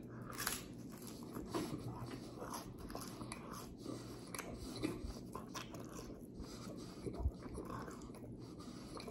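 A person biting into and chewing a slice of thin, crispy-crust pizza, with quiet, irregular crunching.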